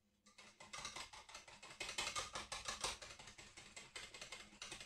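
Hand wire whisk beating thick cream in a bowl, the wires clicking rapidly and steadily against the bowl's sides.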